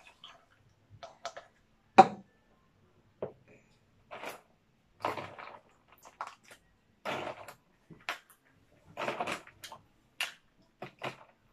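Plastic cup and plastic scoop handled while preparing milk tea: a sharp knock about two seconds in, then a series of short scraping, rattling scoops roughly once a second.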